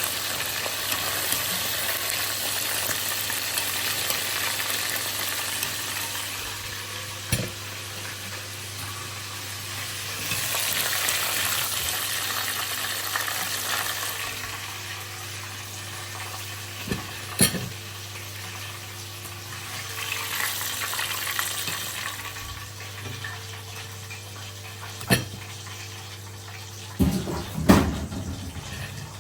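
Chicken pieces frying in hot oil: a steady sizzle that swells and eases a couple of times. A few sharp clinks of a utensil against the pan are heard, with a cluster near the end.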